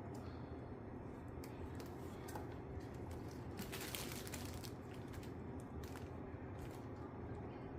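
Faint clicks and rustling of small parts being handled by hand, with a brief louder burst of rustling about four seconds in, over a steady low hum.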